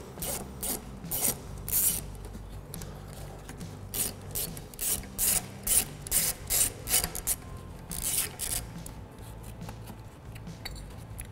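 Hand ratchet on an extension clicking in several bursts of quick rasping clicks, with pauses between, as the 8 mm filler-neck flange bolts are backed out.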